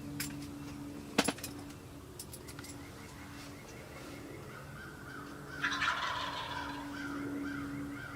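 Wild turkey gobbler gobbling once, a rattling call a little over halfway through that is the loudest sound here. A sharp click comes about a second in.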